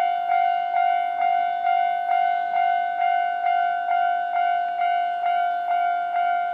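Japanese railway level-crossing warning bell ringing its alarm, an even clanging of one pitched tone at a little over two strikes a second, each strike ringing on into the next.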